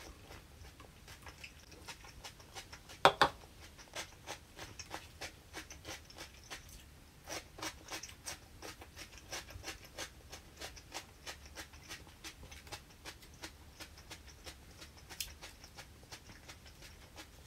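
A person chewing crisp vegetable tempura, a steady run of small crunches and mouth clicks with one sharp, much louder crunch about three seconds in.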